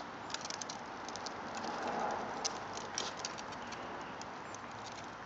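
Small plastic tricycle wheels rolling over rough asphalt: a steady gritty hiss with many small scattered clicks and rattles, swelling a little about two seconds in.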